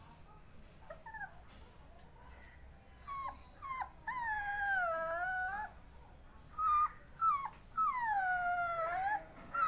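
Rottweiler puppy whining: a few short high cries, then two long drawn-out whines of about a second and a half each, the first dipping and rising in pitch, the second sliding down.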